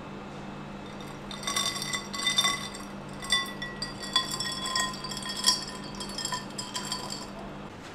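Ice cubes clinking and ringing in a drinking glass as syrup is poured into iced red soda: a run of light clinks starting about a second in, over a low steady hum.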